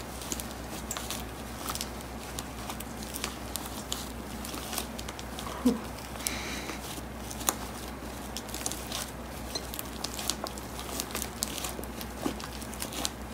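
Irregular soft clicks and crackles of a plastic stirrer working through a foamy mix of shaving cream and glue in a plastic tub. A short squeak comes about halfway through.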